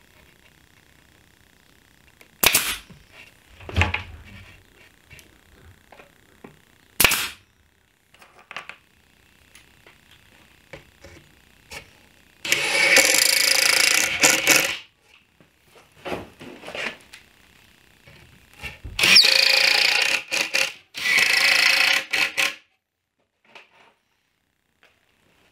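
A pneumatic pin nailer fires a few sharp shots, pinning the drawer-box panels together. Then a Ryobi cordless drill runs steadily for about two seconds, pre-drilling the joint, and runs twice more for about a second and a half each, driving the screws in.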